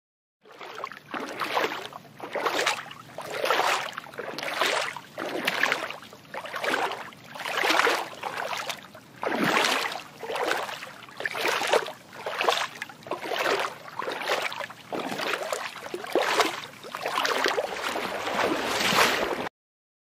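Water sloshing in regular surges, about one a second, each a rising and falling whoosh; it cuts off suddenly near the end.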